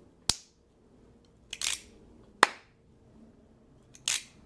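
Two sharp clacks of hard objects knocked together, each followed by a short scraping or brushing sound. It is a homemade sound effect for building the brick house.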